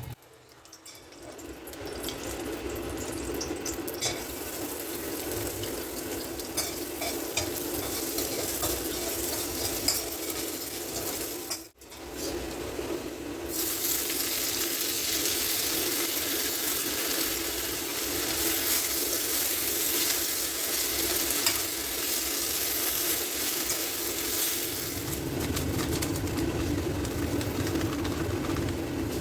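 Stir-frying in a hot pan: oil sizzling steadily while a spatula scrapes and clicks against the metal. After a brief break about 12 seconds in, the sizzle comes back louder.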